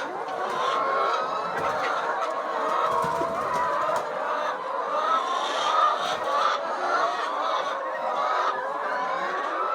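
A flock of laying hens clucking, many overlapping calls at once with no pause.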